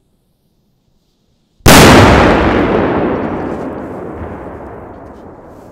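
A large Barracuda firecracker going off with one loud bang about one and a half seconds in, followed by a long echoing rumble that dies away over about four seconds.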